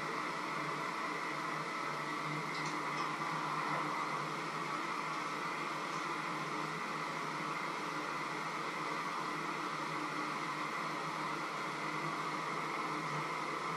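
Steady whirring noise like a running fan or motor, unchanging throughout, with a couple of faint ticks about three seconds in.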